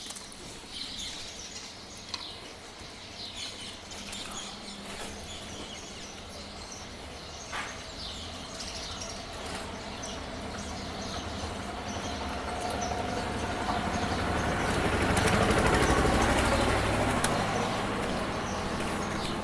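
Street noise with a few birds chirping, then a motor vehicle passing on the road: its rumble builds over several seconds, is loudest about three-quarters of the way through, and eases off near the end.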